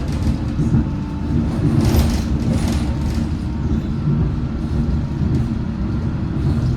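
London Underground S8 Stock train running between stations, heard from inside the car: a steady low rumble of wheels on rails with a faint steady whine from the traction equipment. A short swell of hiss comes about two seconds in.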